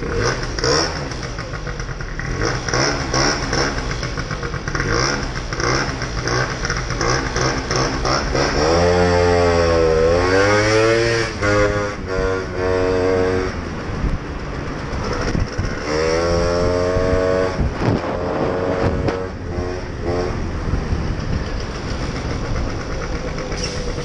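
Gilera Runner SP scooter engine running under way in traffic, its pitch rising as it accelerates about nine seconds in and again around sixteen seconds.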